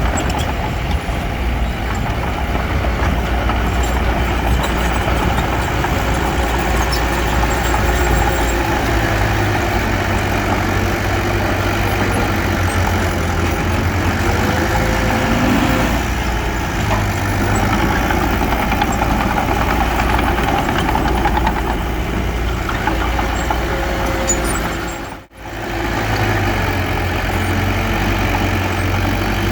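Heavy diesel engine of earthmoving machinery running steadily, with a brief break in the sound near the end.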